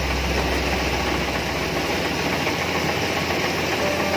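Kubota rice combine harvester running while it cuts, a steady, loud drone of engine and machinery, with a low hum underneath that fades out about halfway through.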